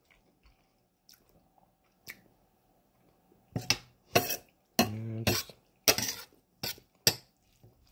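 Metal spoon clinking and scraping against a stainless steel bowl as food is scooped up. Faint ticks for the first few seconds, then a quick run of sharp clinks from about halfway through.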